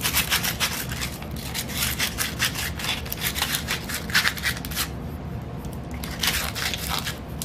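Sandpaper worked with a wooden dowel against the inside of a short cut ring of ABS pipe, smoothing its cut edges: rapid rasping rubbing strokes, with a short pause about five seconds in before the rubbing starts again.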